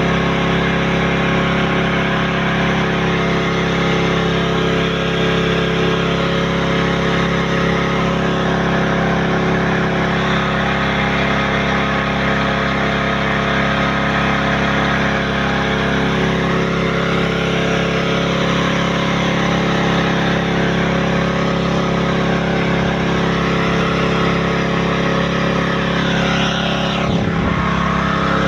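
Engine-driven water pump running steadily at a constant speed.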